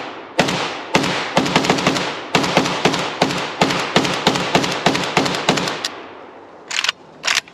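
AKM-pattern semi-automatic rifle in 7.62×39 fired in a rapid string, several shots a second, each shot trailing off in echo; the string stops about six seconds in, followed by a few short sharp sounds near the end.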